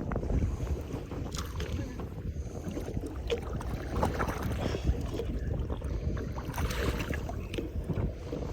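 Low, steady rumble of wind and water around a fishing boat on open water, with scattered small knocks and clatters.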